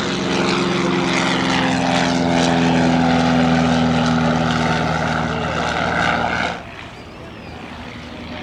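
Stinson 108 light plane's piston engine and propeller at full power on a departure, a loud steady drone. About six and a half seconds in it drops off suddenly to a much fainter aircraft drone.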